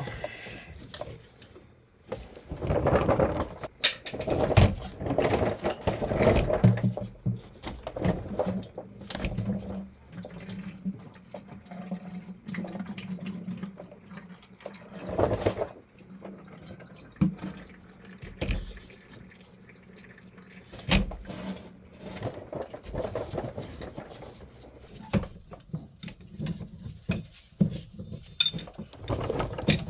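Hand work on a power steering pump under the bonnet: irregular knocks, clinks and scrapes of tools and fittings as the pump's hoses and sensor plug are disconnected, with power steering fluid trickling out of the opened lines.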